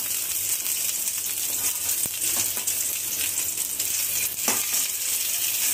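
Homemade chicken sausage sizzling as it fries in oil in a pan: a steady hiss, with a sharp knock about four and a half seconds in.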